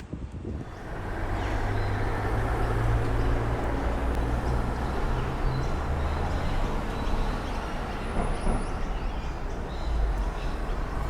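A heavy road vehicle passing close by: engine hum and tyre noise rise about a second in, hold steady for several seconds, then ease, with a faint high whine midway.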